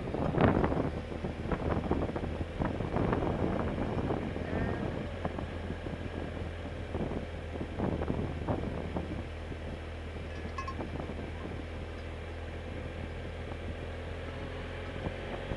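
Motorcycle engine running at low speed as a steady low drone, with wind buffeting the helmet microphone in gusts that are strongest in the first half and settle later.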